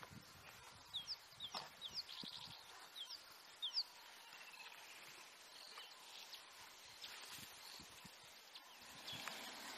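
Birds calling: a quick run of short, sharp chirps and a brief trill in the first few seconds, over a faint outdoor background.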